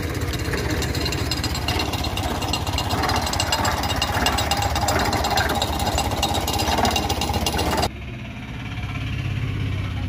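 Engine of a tripod pile-boring rig's winch running steadily with a rapid knocking beat. It cuts off abruptly near the end, leaving a quieter low rumble.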